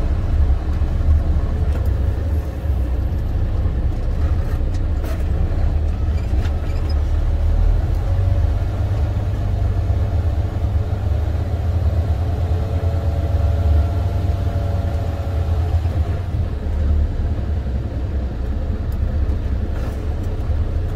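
The diesel engine of an International semi-truck tractor, a MaxxForce 13, running as the truck moves slowly, heard from inside the cab as a steady low rumble. A faint whine rises over it for a few seconds in the middle.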